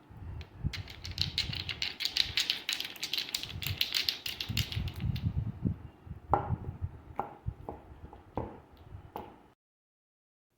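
Clicking and tapping of small hard objects being handled, a dense run of light clicks at first, then a few separate sharper knocks, cutting off suddenly about a second before the end.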